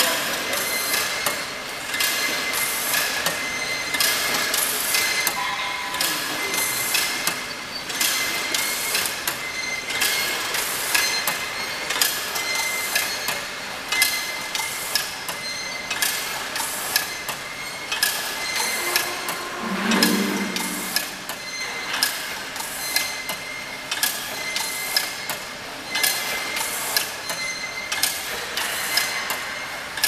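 Crimped wire mesh weaving machine running, its weaving mechanism clacking in a regular beat of about two strokes a second over a thin steady whine. A short low-pitched sound comes about twenty seconds in.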